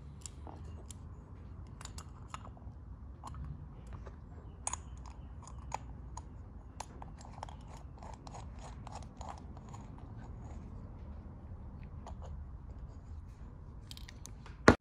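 Small-engine carburetor parts handled in the hands: scattered light clicks and taps of metal and plastic pieces, with one sharper click near the end.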